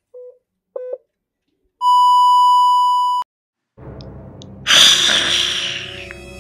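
Heart-monitor sound effect: two short beeps, then a steady flatline tone for about a second and a half that cuts off suddenly. About a second and a half later, a loud rushing noise swells up and fades away.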